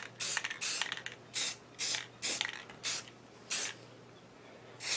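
Aerosol spray paint can (rattle can) spraying in short bursts, about eight hisses of a fraction of a second each, with brief pauses between, the later ones more spaced out.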